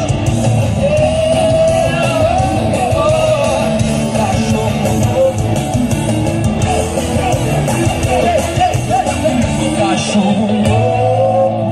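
Live band music with a singer, played loud over the stage's loudspeakers.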